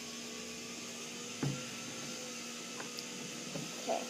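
Steady low hum and hiss of room noise, with a few light knocks, the clearest about a second and a half in and another near the end.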